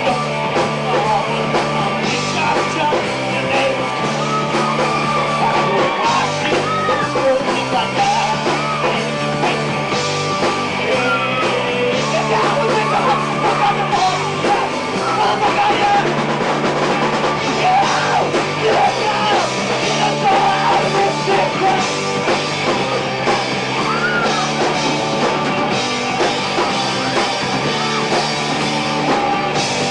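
Loud rock song played by a band, with a stepping low line underneath and a bending, wavering lead line on top.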